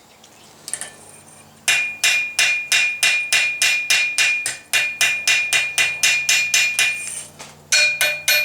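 Forging hammer striking the hot end of a 12 mm rebar handle to flatten it on the anvil: a steady run of about four ringing blows a second, starting a couple of seconds in, a brief pause near the end, then a few more blows.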